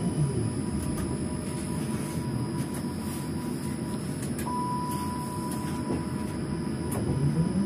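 Tram heard from the driver's cab: the traction motors' whine falls away as it comes to a halt just after the start, then it stands with a low hum. A steady beep sounds for about a second and a half midway, and near the end the motor whine rises again as the tram pulls away.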